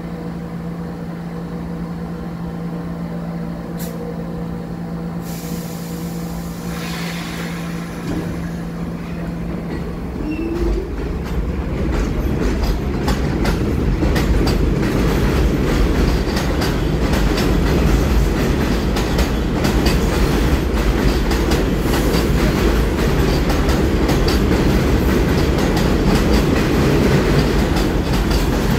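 R46 subway train standing with a steady electrical hum. About five seconds in comes a hiss of air. Near ten seconds in its motors whine upward as it pulls away, and its wheels clatter over the rail joints, growing louder.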